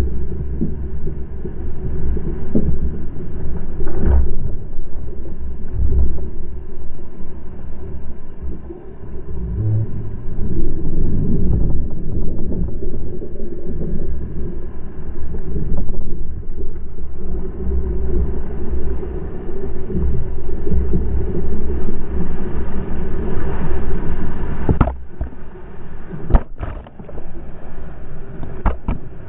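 Wind buffeting the microphone of a camera mounted on a planing RS800 sailing dinghy, with water rushing and splashing along the hull. Near the end, a few sharp smacks as spray hits the camera.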